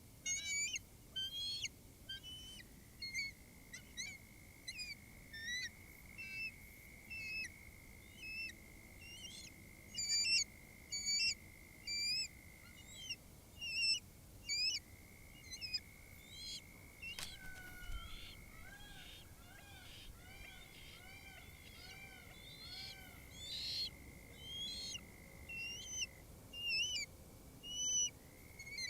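Birds calling: many short, high chirps throughout, over a steady high tone that breaks off briefly a few times. About two-thirds of the way through comes a run of about eight repeated, arched call notes.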